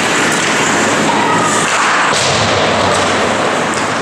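Ice hockey play in an echoing rink: skate blades scraping the ice under a steady wash of arena noise, with a few sharp knocks of stick, puck or boards.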